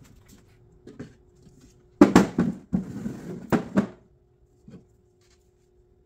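A cork-faced wooden piece being set and pressed into the corner of a cedar table frame: about two seconds of knocking and scraping, wood on wood, over a faint steady hum.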